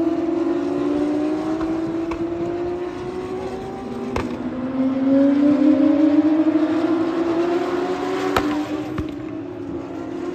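Several open-wheel racing cars running past one after another, their engine notes climbing as they accelerate and dropping at each upshift, with sharp cracks at the shifts. The engines are loudest around the middle.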